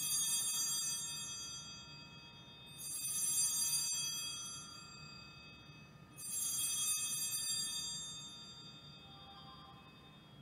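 Altar bells (sanctus bells) rung three times at the elevation of the host during the consecration. Each ring starts suddenly, rings out in a cluster of bright high tones and fades over about two seconds.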